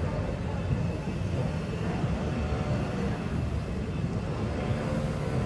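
Steady low rumble of outdoor background noise, without distinct events.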